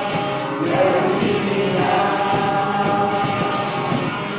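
A group of voices singing a song together, with music.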